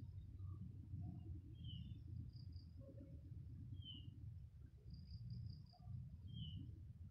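Quiet rural outdoor ambience: a steady low rumbling noise, with short high chirps recurring about every two seconds, each paired with a brief higher trill.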